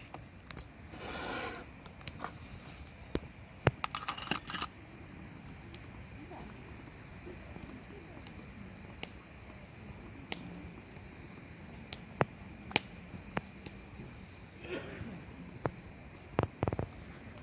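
Campfire crackling, with scattered sharp pops and snaps, over a steady pulsing high insect trill that sets in about four seconds in.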